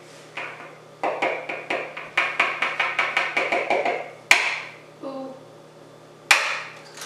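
An egg tapped over and over against the rim of a glass mixing bowl, about six light clicks a second with a faint ring from the glass, then a harder knock about four seconds in and another near the end.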